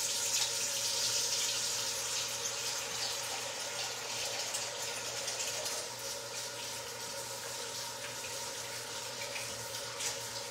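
Kitchen faucet running steadily into the sink, with a faint steady hum underneath.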